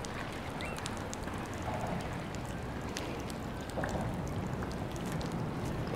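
Steady rushing of tidal inlet water, with scattered faint ticks.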